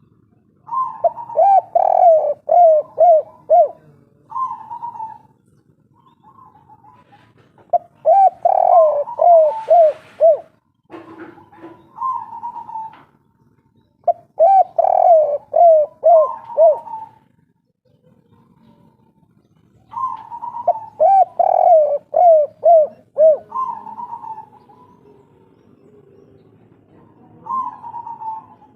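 Spotted dove (derkuku) singing its 'kuk 3' cooing song. Four phrases, each a quick run of falling coos, come about every six seconds, with single short coos between them. There is a brief knock about a third of the way through.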